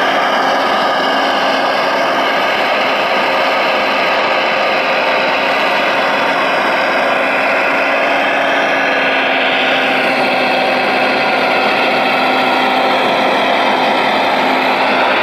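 Hydraulic pump and electric motors of a radio-controlled Liebherr 970 excavator model running steadily under load as its log grapple works, a constant whine whose pitch drifts slowly up and down.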